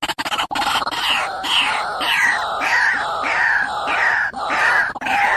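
White-breasted waterhen calling: a fast rattling run gives way, about a second in, to harsh repeated notes, nearly two a second, each falling slightly in pitch.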